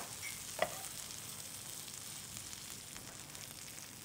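Faint, steady sizzle of an egg omelette loaded with onions frying in oil in a pan, with one light tap about half a second in.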